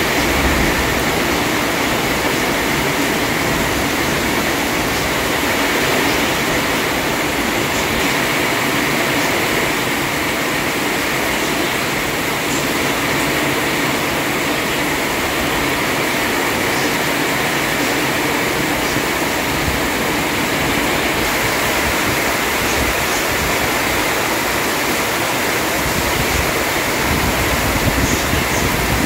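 Heavy rain falling steadily, a dense even hiss, with a low rumble swelling just after the start and again near the end.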